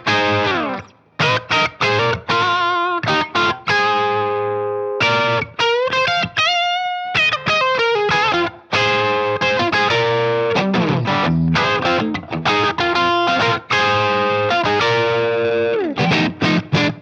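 Maybach Lester 59, a humbucker electric guitar, played through an overdriven amp: distorted rock chords and riffs, with a short lead phrase of bent notes and vibrato in the middle before the chords return.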